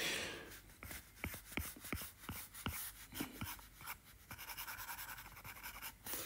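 Stylus tip tapping and scratching on an iPad's glass screen while sketching: scattered light taps, then from about four seconds in a fast run of short scratching strokes, about ten a second, as a nostril is shaded in.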